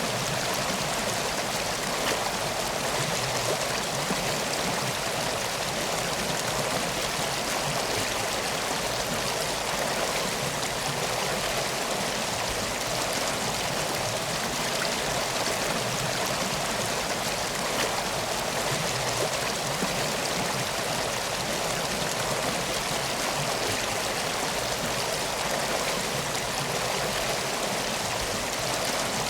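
Steady flowing water of a river, an even rushing sound.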